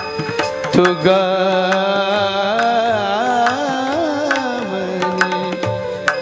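A male voice sings a long, wavering, melismatic line of a Marathi Warkari bhajan over steady held accompaniment tones, with occasional pakhawaj strokes.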